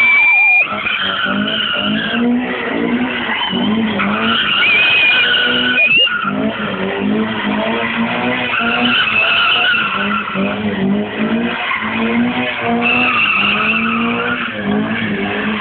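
A car drifting, its engine revving hard, with the pitch climbing and dropping again and again. Tyres squeal in long stretches of one to two seconds between the revs.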